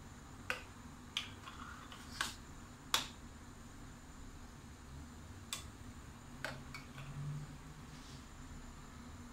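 Metal spoon clinking against a small stainless steel saucepan while stirring a thin oats and flax seed mixture: about seven sharp, irregular clinks in the first seven seconds, the loudest about three seconds in.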